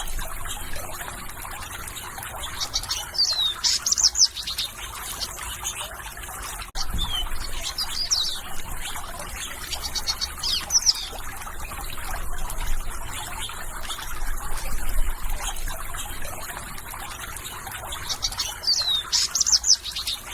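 Songbirds chirping in short bursts of quick, high, falling notes a few seconds apart, over a steady trickle of running water.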